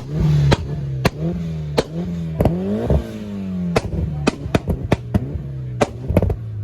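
Mitsubishi Lancer Evolution VIII's turbocharged four-cylinder being blipped repeatedly. The revs fall after each blip, between loud, sharp exhaust bangs. There are over a dozen bangs, coming quicker and in clusters in the second half.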